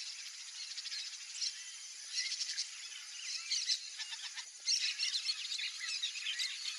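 Yellow-rumped marshbirds calling: a busy chatter of short squeaky chirps and swooping whistles, with busier runs about two seconds in, around three and a half seconds, and from about five seconds on.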